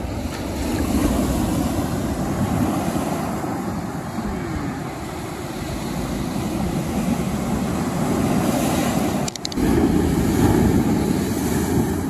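Lake Superior surf breaking and washing on a cobble beach, a steady low rumble that swells and eases, with wind on the microphone. The sound drops out briefly with a few clicks about nine seconds in.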